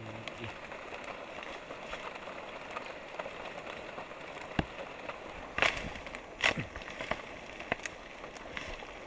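Kava plant being pulled up by hand: a handful of sharp snaps and cracks of stems and roots breaking, clustered in the middle, with rustling foliage over a steady background hiss.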